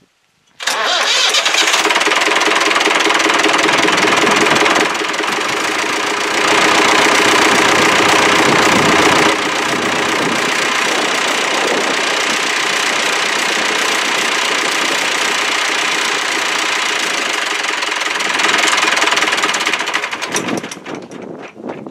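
David Brown 1200 tractor's diesel engine starts abruptly about half a second in and runs steadily, getting louder for a few seconds twice, then dies away near the end. The engine has just been rebuilt after a knocking fault and now runs sounding like it's supposed to.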